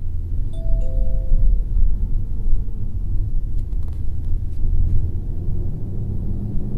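Nissan V37 Skyline's 3-litre V6 turbo accelerating, heard inside the cabin as a low rumble of engine and road noise that gets louder as the car pulls away. Two short tones sound about a second in.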